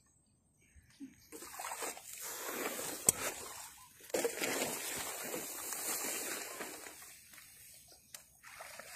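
Water splashing and sloshing as someone wades through the shallow, grassy edge of a creek, with a sharp click about three seconds in. The splashing starts about a second in and dies down near the end.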